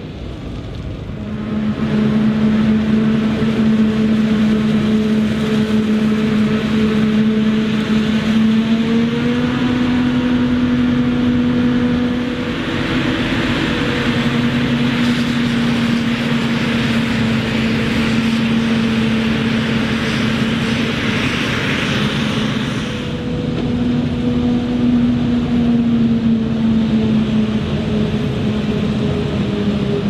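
Claas Jaguar 950 self-propelled forage harvester chopping maize, running with a steady droning hum whose pitch steps up slightly about nine seconds in. Through the middle stretch a loud hissing rush rides over the hum.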